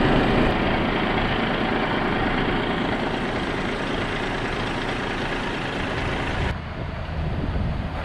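Feed delivery truck's engine running with a steady low hum under a dense rushing noise; the higher noise drops off suddenly about six and a half seconds in.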